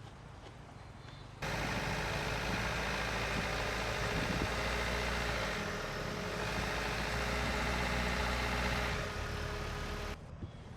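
A machine running steadily with a low, even hum and a held higher tone, starting suddenly about a second and a half in and stopping suddenly near the end.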